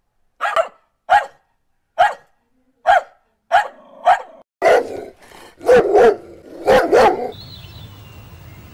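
A puppy barking, with short yaps about once a second and then a run of louder, longer barks about halfway through.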